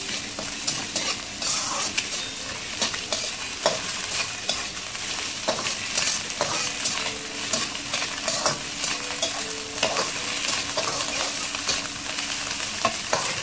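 Kimchi fried rice sizzling in a wok over high heat, with a metal turner scraping and clicking against the pan many times as the rice is stir-fried.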